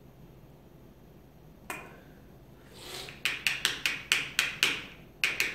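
Sharp plastic clicks and taps from handling a plastic bottle of XTC-3D coating and a small measuring cup. There is one click, then a quick run of about eight clicks, roughly four a second.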